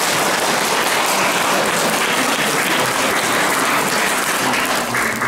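Audience applauding steadily, the clapping dying away right at the end.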